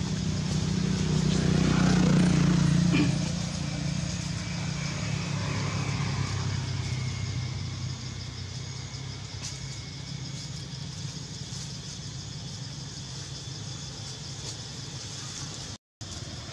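A motor vehicle engine running steadily, loudest about two to three seconds in, then easing off to a lower, steady hum.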